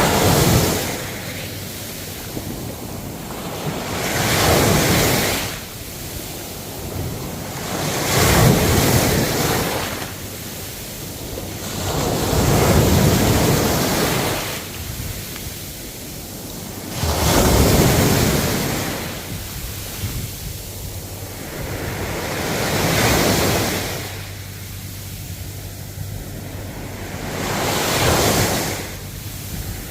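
Ocean waves breaking and washing ashore in a steady rhythm, a surge every four to five seconds, about seven in all.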